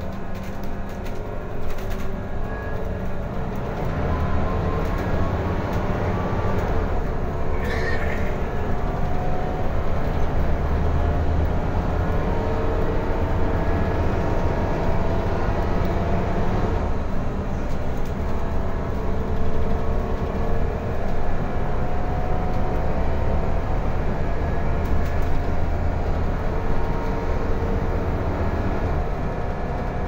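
Inside a Mercedes-Benz OC500LE city bus under way: a low engine drone that grows louder about four seconds in as it pulls away, with a driveline whine that slowly climbs in pitch, drops back about halfway through and climbs again as the bus gathers speed.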